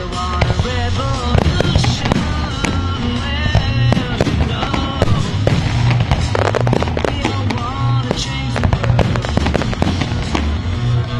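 Aerial firework shells bursting in many sharp bangs and crackles, over loud music with a steady bass beat.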